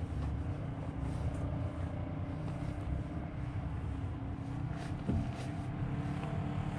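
Polaris RZR Turbo S side-by-side's turbocharged two-cylinder engine idling steadily.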